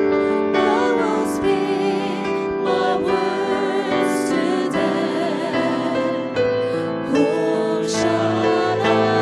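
Christian worship song: voices singing with vibrato over instrumental accompaniment.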